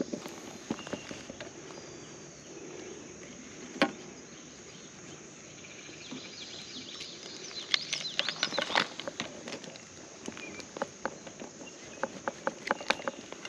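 Outdoor creek ambience with a steady hiss and scattered sharp clicks, with dense clusters of clicking and rattling about eight seconds in and again near the end as a landing net and a freshly caught small smallmouth bass are handled on a gravel bar.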